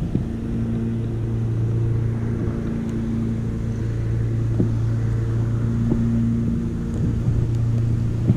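A steady low motor hum at constant speed and pitch, with a few faint clicks over it.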